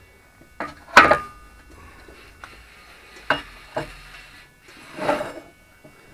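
Metal tooling and parts being handled and set in place: a few sharp metal clinks and knocks, the loudest about a second in with a short ring, two more a little after three seconds, and a brief scrape about five seconds in.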